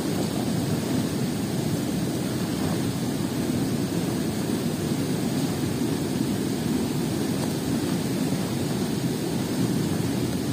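Fast, turbulent river water churned white with foam, rushing past the bank in a steady, even low rush.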